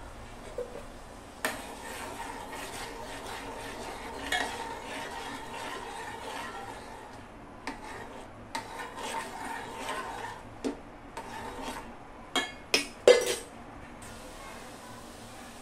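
A spoon stirring and scraping around an aluminium pot of barley flour cooking in milk, then three sharp knocks of the spoon against the pot near the end, the last the loudest.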